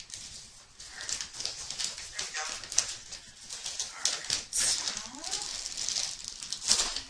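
Plastic or foil blind-pack wrapping being crinkled and torn open by hand, an irregular run of sharp crackles.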